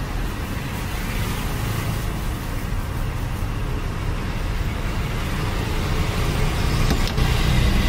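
Steady rushing background noise with no distinct events in it.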